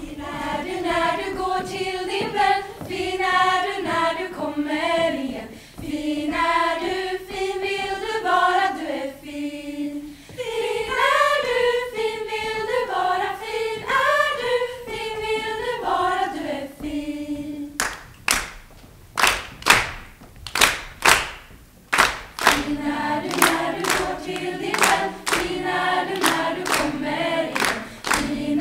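A group of young women singing together as a vocal ensemble. About two thirds of the way through the singing stops and they clap a steady beat of about three claps a second, then the singing comes back in over the clapping.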